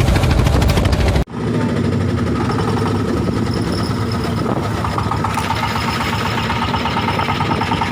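Boat engine running steadily. About a second in the sound cuts off abruptly and resumes as a steadier, higher hum.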